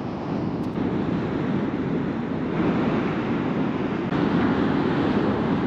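Surf breaking and washing over sea rocks, with wind buffeting the microphone; the rush gets louder about four seconds in.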